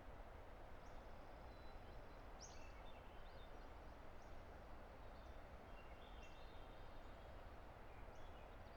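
Steady, faint rush of a distant river, with small birds singing faint short high calls and whistles every second or so.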